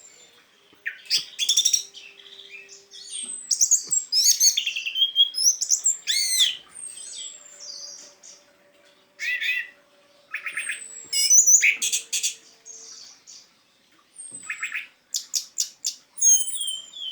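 Orange-headed thrush singing its full, rambling 'teler' song: a string of varied high phrases of falling whistles, quick trills and sharp chirps, with short pauses between them.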